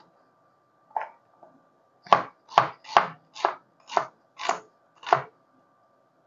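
Wide-bladed chef's knife slicing a red onion on a plastic cutting board: one knock about a second in, then seven more in a steady run of about two a second.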